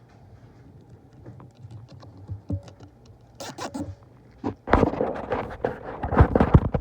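Nylon cable tie being pulled through its locking head, its teeth ratcheting past the pawl with a zipping rasp, mixed with handling noise. Scattered faint clicks at first, then short rasps a little after three seconds in and louder, denser zipping from about four and a half seconds in.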